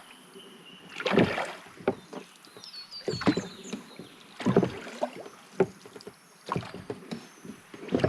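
Small wooden dinghy being rowed, its oars dipping and knocking in the oarlocks with a stroke about every second, along with a few faint high chirps.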